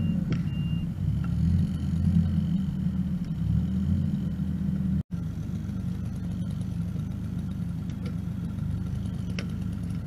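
Kubota R430 articulated wheel loader's turbo diesel engine running as it works, rising and falling in the first half and steadier after a brief dropout about five seconds in. A reversing beeper sounds a few times at the start and stops within the first second.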